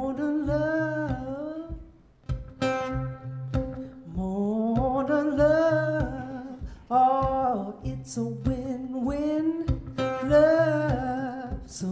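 A woman sings a song with long, bending notes while strumming an acoustic guitar.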